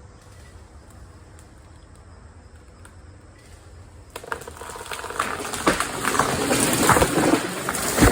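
A dead tree, snapped partway up and hung in a neighbouring tree, breaking free and crashing down through the branches after being pulled with a cable and come-along. Cracking and snapping begin about four seconds in, build into heavy crashing, and peak with a hard hit near the end before dying away.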